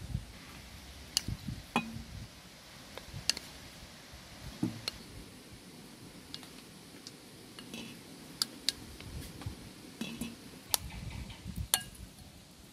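Light, irregular clinks and taps of a spoon, a ceramic bowl and large glass jars as blackberries are spooned into the jars, a dozen or so over the stretch.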